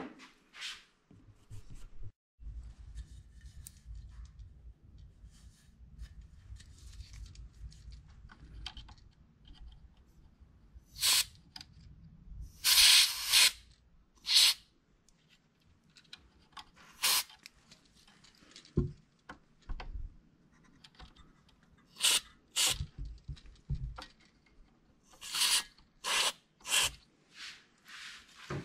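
Aerosol contact cleaner sprayed through a thin straw into an amplifier's volume potentiometer: a string of short hisses, one longer one about 13 seconds in and several close together near the end. Faint rubbing and handling noise comes between them. The pot is being cleaned to cure the amplifier's sound cutting out.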